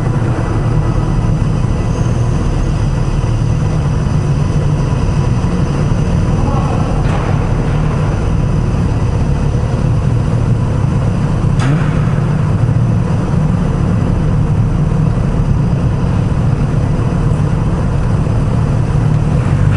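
Kawasaki Z900RS's inline-four engine running steadily at low speed, a continuous low drone.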